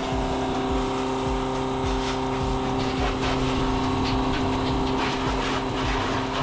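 Portable-toilet service truck running steadily, its engine and vacuum pump keeping up an even, unchanging hum.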